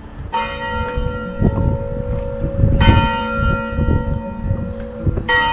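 A bell struck three times, about two and a half seconds apart, each stroke ringing on with several overtones. Wind rumbles on the microphone underneath.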